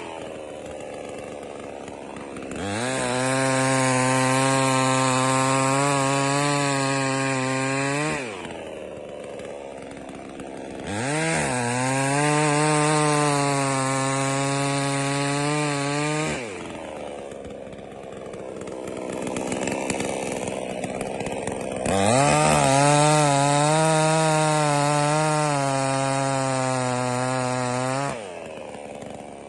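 JONSER BS5800 two-stroke petrol chainsaw idling and revved up three times. Each time it is held at high speed for about five seconds, then drops back to idle.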